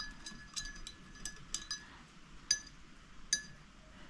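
Light clinks of something hard tapping against a small glass or ceramic vessel, about eight in an uneven run, each with a brief high ring. The two loudest come a little past halfway.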